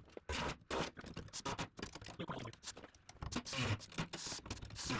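Irregular clicks, taps and scrapes of a hand-held air saw being handled and set against the Jeep cab's sheet-metal wall, before the cut starts.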